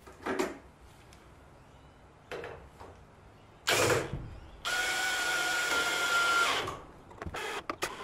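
18V cordless drill-driver driving a wood screw into a timber frame. A short burst about four seconds in, then the motor runs steadily for about two seconds and stops suddenly. A few light knocks and clicks from handling the screw and frame come before and after.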